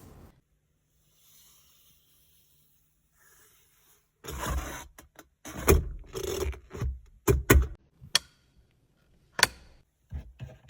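Near silence for about four seconds, then a string of irregular sharp clicks and knocks, some with a short ring, as parts of a Mercedes car are worked by hand.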